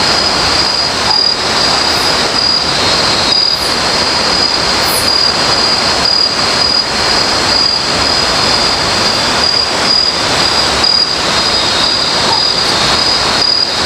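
Night insects, likely cicadas or crickets, keep up a loud, steady high-pitched chorus over a continuous rush of river water.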